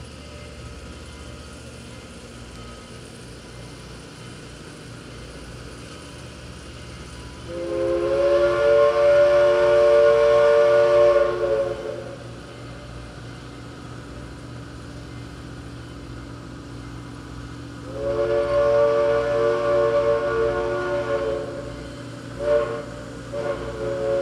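A steam locomotive's chime whistle blows two long blasts about ten seconds apart, each a three-note chord, then short toots near the end. Under it runs the steady rumble of passenger cars rolling past.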